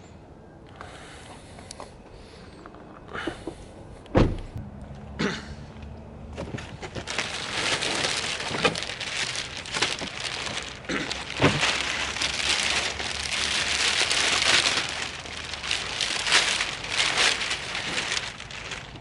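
Floor mats being handled in and around the car: a few knocks and one heavy thump about four seconds in, then a long stretch of dense crackling and rustling that stops just before the end.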